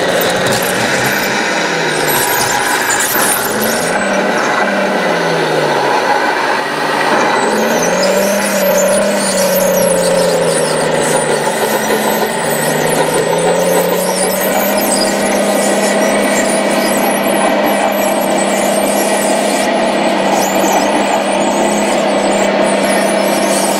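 Radio-controlled scale Komatsu bulldozer's electric drive motors and gearboxes whining as it tracks along pushing earth with its blade. The pitch swoops up and down over the first half and then holds steady.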